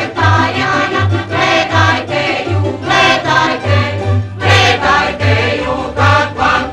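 Mixed folk choir singing with plucked tamburica accompaniment over a steady low beat that pulses about once every 0.7 seconds.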